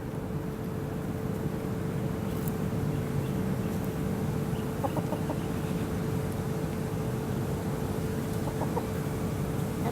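A few short bird calls, in two small groups near the middle and toward the end. Under them runs a steady low hum with one constant mid-pitched tone, the loudest thing throughout.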